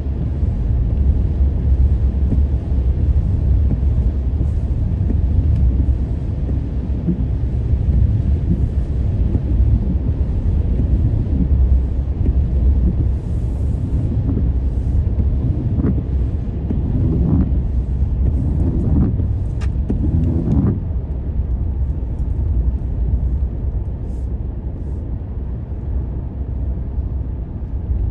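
Steady low rumble of road noise inside a moving car's cabin, with the tyres running on wet pavement. A few short wavering sounds come through about two-thirds of the way in.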